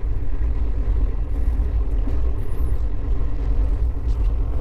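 Moving passenger train heard from inside an AC coach: a steady low rumble of the running gear and track.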